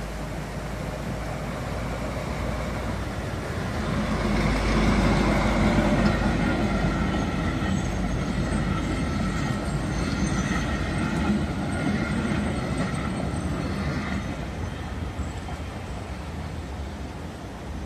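A historic train, an FS D345 diesel-electric locomotive hauling Corbellini passenger carriages, passing over a level crossing. It grows loud about four seconds in, and the carriages roll past until about fourteen seconds in, when the sound starts to fade.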